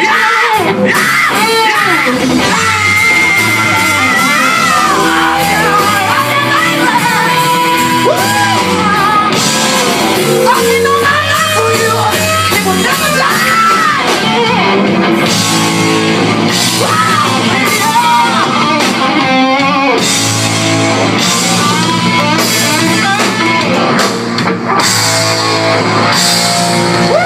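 Live rock band performing: a male singer singing over electric guitar, bass and drums.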